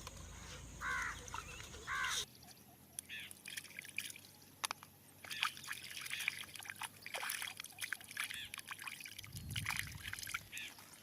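Water sloshing and dribbling in small, irregular splashes as freshly dug raw turmeric rhizomes are dipped and rinsed of soil by hand. Two short bird calls sound in the first two seconds.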